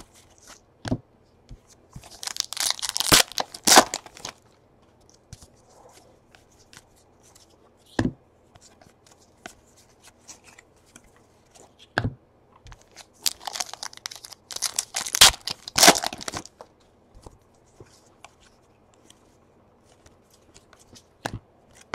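Baseball card pack wrappers torn open and crinkled in two goes, about two seconds in and again around thirteen seconds in. Scattered light taps and flicks of cardboard cards being handled fall between them.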